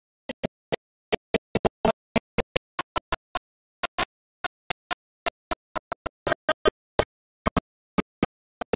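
A man's voice through a microphone PA, chopped into brief fragments, about four a second at irregular spacing, with dead silence between: the audio is dropping out, so only clipped scraps of the voice come through.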